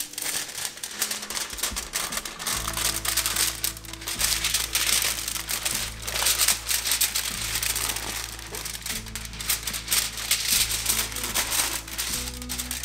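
Sheets of aluminium foil crinkling and rustling as hands fold and crimp them around a brisket, over background music with steady low notes.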